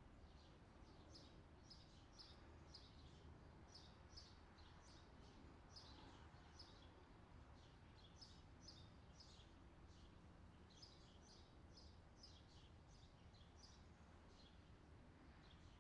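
Near silence: faint, short, high bird chirps, about two a second with brief pauses, over a low steady hum.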